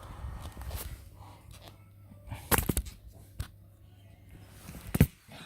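Handling noise: a few sharp knocks and clicks of things being moved about, the loudest about five seconds in.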